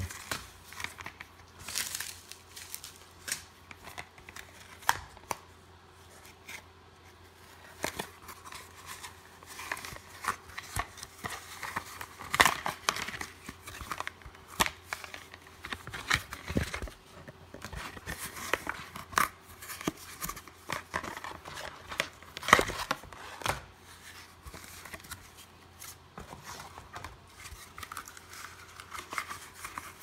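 Handling noise from unpacking a small cardboard box with a foam insert: scraping, rustling and tapping of cardboard and foam under gloved hands, with two louder knocks about twelve and twenty-two seconds in.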